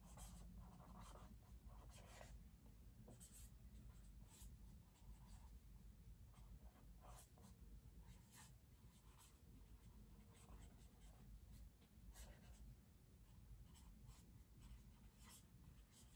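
Faint handwriting on paper: short, irregular scratching strokes of a pen as someone writes in a journal, over a low steady room hum.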